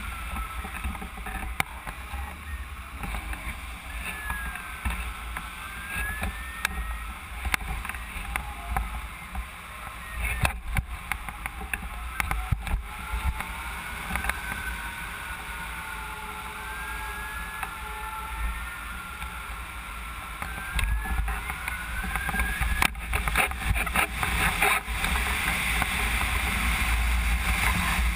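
Wind rushing over a camera mounted on a hang glider in flight, with low buffeting and faint whistling tones that slide slowly up and down. The rush grows louder over the last few seconds as the glider comes down near the ground.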